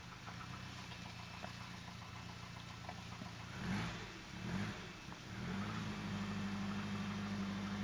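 A 1982 Mercedes-Benz W123 230E's 2.3-litre fuel-injected four-cylinder idles cold, just after a start at minus 21.5 °C. Around the middle it is blipped twice, briefly rising and falling in pitch, and it then settles into a steadier, slightly higher idle.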